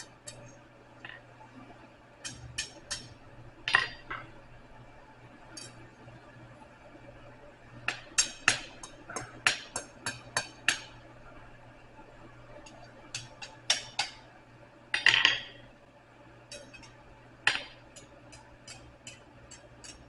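Hammer striking a hot 3/8-inch steel rod on an anvil in short runs of quick, ringing blows with pauses between, forming a small scroll at the tapered end. A steady low hum sits underneath.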